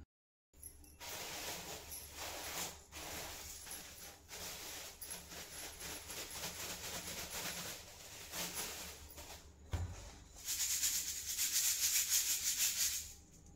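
Dry whole coriander seeds rustling and pattering in a metal sieve as they are handled and poured in. There is a low thump a little before ten seconds in, then a denser, louder rattling hiss as the sieve is shaken to clean the seeds.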